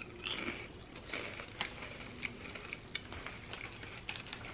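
Ridged Taffel Broadway sour cream and onion potato chips being crunched while chewing: a string of soft, irregular crackles.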